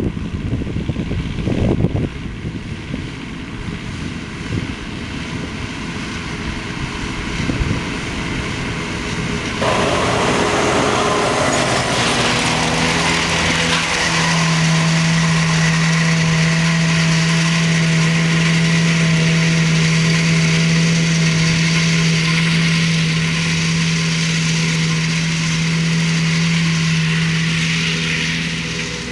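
McCormick MC 130 tractor running a Lely Splendimo 320 M disc mower through grass, with wind buffeting the microphone in the first couple of seconds. About ten seconds in it grows much louder as the machine passes close, settling into a steady hum with a higher whine that drops away near the end.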